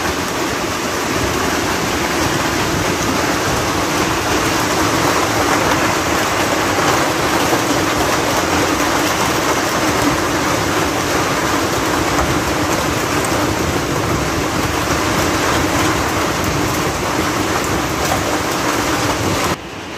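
Hailstorm with heavy rain pelting down on the ground and surroundings, a dense steady din that drops away suddenly just before the end.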